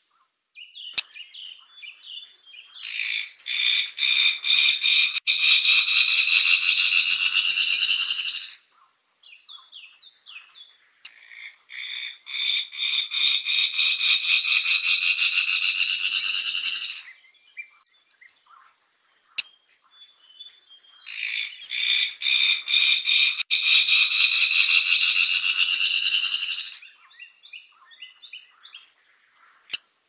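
Fire-tufted barbet calling: a run of short clipped notes leading into a long, high buzzing trill of about five seconds, three times over.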